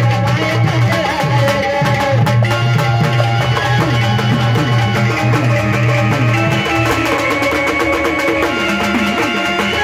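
Instrumental music, a plucked string instrument over drums, with a low steady drone that drops out about seven seconds in.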